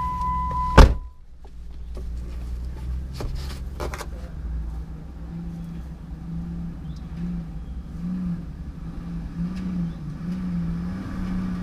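A vehicle door slams shut about a second in, cutting off a steady high tone; then an off-road vehicle's engine runs with a low, wavering pitch, with a few faint clicks.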